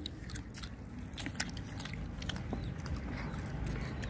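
Crunching of people biting and chewing crisp raw fruit slices: a series of sharp crunches over a low background hum, with the sharpest crunch about a second and a half in.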